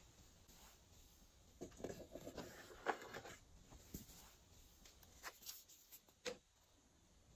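Faint sticky squishing and clicking of glossy slime being mixed and pressed, busiest from about one and a half to three and a half seconds in, then a few separate small pops.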